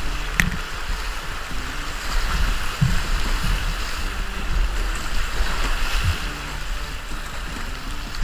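River water rushing and splashing around a kayak's bow in a small rapid, over a low rumble, with a sharp knock about half a second in.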